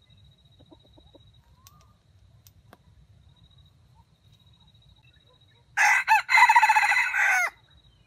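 Red junglefowl rooster crowing once, a loud crow of about a second and a half that begins about six seconds in with a brief break after its first note. A few soft clucks come about a second in.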